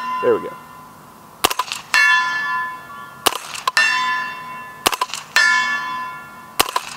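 Spikes Tactical Brown Recluse integrally suppressed 9mm carbine firing about four shots roughly 1.6 s apart. Each shot is answered about half a second later by the clang and long ring of a steel plate at 100 yards, the sign of a hit.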